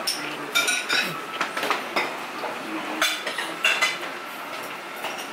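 Dishes and cutlery clinking: a string of sharp clinks, several of them ringing briefly, over restaurant background noise.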